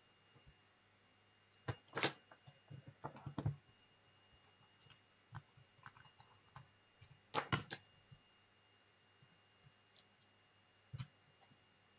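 Scattered clicks and light knocks from a small robot car's acrylic chassis, wires and connectors being handled, turned over and set down on a table. The clicks come in clusters about two seconds in, around three and a half seconds, and again around seven and a half seconds.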